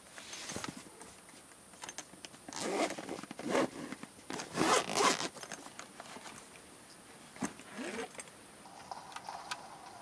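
A zipper pulled in about five short rasping strokes. The loudest strokes fall around three and five seconds in.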